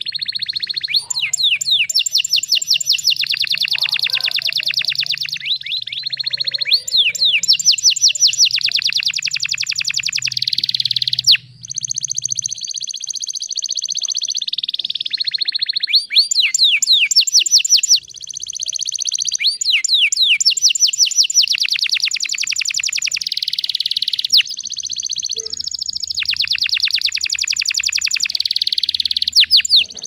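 Domestic canary singing a long, continuous song of very fast rolling trills and chattering phrases, breaking off briefly a few times.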